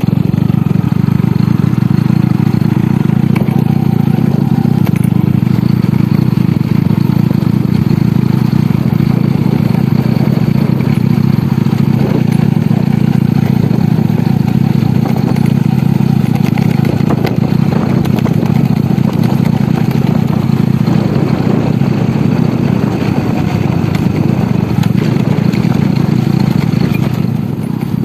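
Small motorcycle being ridden along a road, its engine running steadily, heard from the rider's seat.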